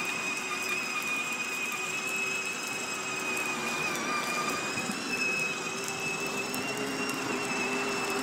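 Battery-powered ride-on toy Mercedes GL-Class car driving, its electric motors and gearboxes giving a steady high whine. The whine dips slightly in pitch about four seconds in, then rises again.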